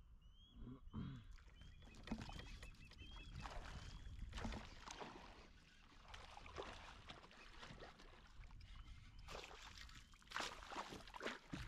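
A hooked fish splashing and thrashing at the water's surface as it is fought toward a kayak; the splashing grows louder near the end. A bird chirps several times in quick succession during the first few seconds.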